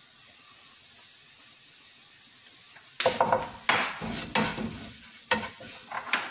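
Wooden spatula stirring and scraping onions and whole spices frying in a pan, in quick irregular strokes that start about halfway through. Before the strokes there is only a quiet, steady sizzle.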